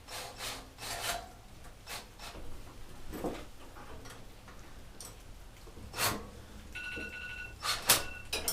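Scraping and rubbing of parts being handled and refitted by hand, with scattered knocks and clicks, the loudest about six seconds in. Near the end a faint high steady tone sounds for about two seconds.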